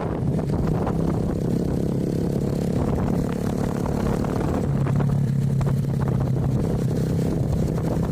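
A small engine running steadily, its pitch settling a little lower about halfway through, with wind rushing on the microphone.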